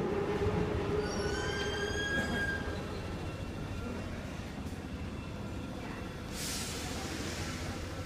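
Metro train rumbling in the station, with a high metallic wheel squeal for a second or so near the start, then a quieter rumble. A short burst of hiss comes about six seconds in.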